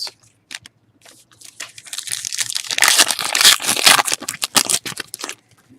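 Foil trading-card pack wrapper being torn and crinkled. A few light clicks come first, then a dense crinkling that builds, is loudest midway and stops just before the end.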